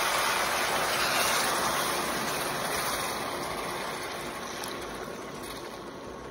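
Hot pan of butter-fried seviyan (vermicelli) hissing and sizzling loudly as water hits the hot fat, the sizzle slowly dying down as the water takes over.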